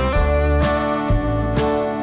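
Background music on plucked guitar, a new note or chord about every half second over sustained bass.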